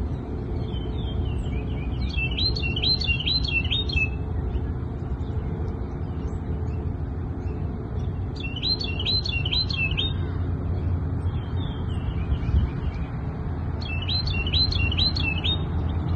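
A songbird sings the same short phrase of four or five quick, repeated high notes three times, several seconds apart. Fainter birdsong comes in between, all over a steady low rumble.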